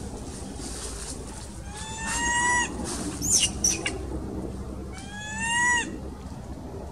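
Baby macaque crying: two drawn-out calls that rise in pitch and then level off, about three seconds apart. A brief, very high chirp sounds between them.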